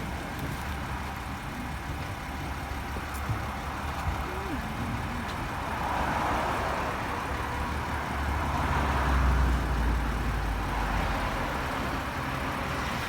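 A motor vehicle's engine running with a steady low rumble, swelling louder for a few seconds in the middle before settling back.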